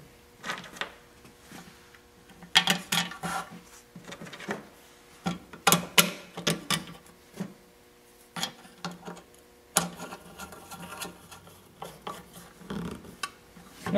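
Intermittent clicks, rubs and a few short squeaks as hands handle a plastic Briggs & Stratton carburetor on its fuel tank and drive its mounting screws back in with a screwdriver.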